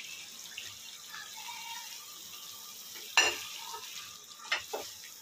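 Spiced masala gravy sizzling in a steel kadai as fried colocasia-leaf roll pieces go in and are stirred with a wooden spoon. There is a sharp knock about three seconds in and two lighter knocks a second or so later.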